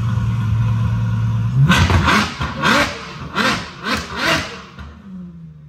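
Ferrari FF's V12 engine idling steadily, then blipped in a quick series of revs, each one rising and falling back, before dropping to a settling idle near the end.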